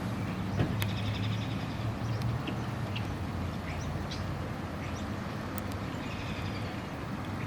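Outdoor ambience: a steady low rumble, like a distant engine or traffic, fading slightly, with scattered short bird chirps over it, including a quick run of repeated notes about a second in.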